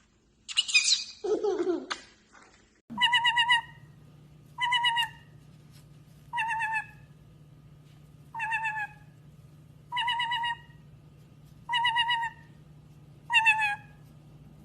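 Pet parrot calling: two quick gliding squawks, then the same short warbling call repeated seven times, about one every second and a half.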